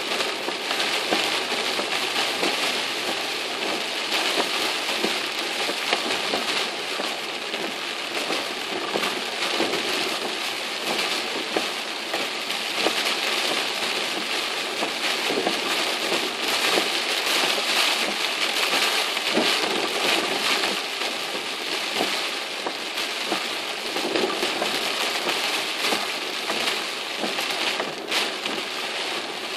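Typhoon rain falling on a car's windshield and body, heard from inside the cabin: a dense, steady patter with no let-up.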